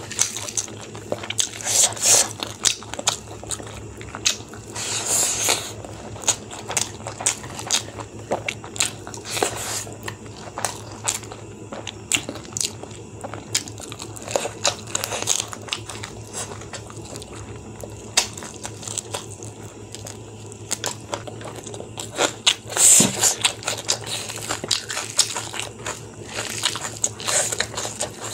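Close-up eating sounds of a person eating rice and chicken curry by hand: fingers mixing rice on the plate and mouthfuls being chewed, with many short wet clicks and a few louder bursts. A steady low hum runs underneath.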